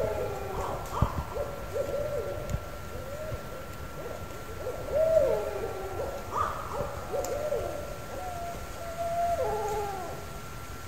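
A field recording of a series of hooting calls, each bending up and then dropping at the end, about one every second or two; near the end two calls overlap. A thin steady whine runs underneath, and there is a dull knock about a second in.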